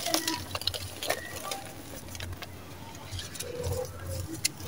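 Dry sand-cement chunks crushed and crumbled between bare hands: irregular gritty crunches and crackles as pieces break apart and grit falls onto the pile.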